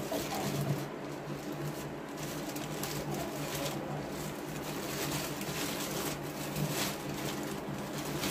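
Cornstarch powder being poured onto wet chalk paste in a bowl: a soft rustling hiss with irregular small crackles, over a steady low hum.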